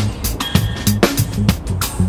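Background music with a steady drum beat and a stepping bass line.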